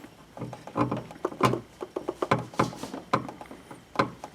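Irregular small plastic clicks and scrapes of hands twisting a low-beam headlight bulb in its socket to free it from the headlamp housing.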